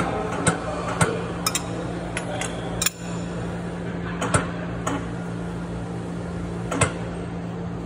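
Six-cylinder engine's crankshaft being turned by hand with a breaker bar and socket on the crank bolt: irregular sharp metallic clicks and clacks, about eight, over a steady low hum.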